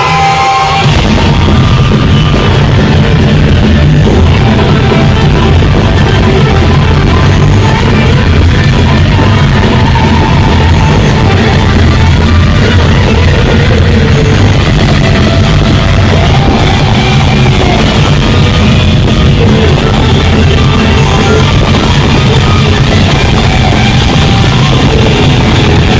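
Rock band playing live at full volume, a dense wall of guitars, bass and drums with no vocals. The low end comes in hard about a second in.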